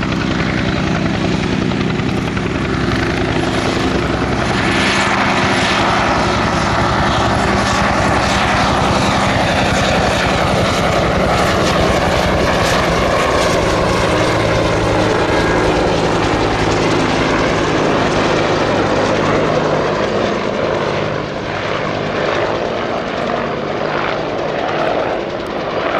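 Bell UH-1H Huey helicopter running loud: the rapid, even chop of its two-blade main rotor over the steady drone of its Lycoming T53 turbine.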